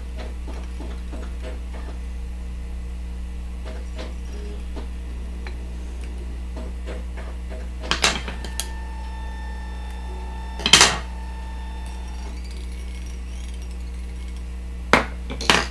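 Steady low hum, with a few light clicks and taps from fly-tying tools being handled as the thread is tied off at the hook: a couple of clicks about halfway through, another a few seconds later, and two close together near the end.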